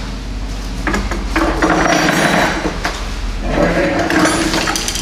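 Rubbing, scraping and light knocking of motorcycle parts being handled and fitted by hand at the handlebar and front fairing, in two longer stretches over a steady low hum.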